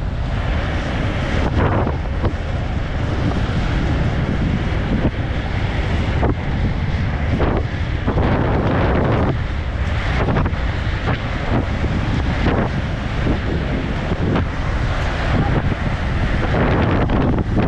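Wind rushing and buffeting over the microphone of a camera carried by an inline speed skater at race speed, in irregular gusts, over the rolling noise of skate wheels on asphalt.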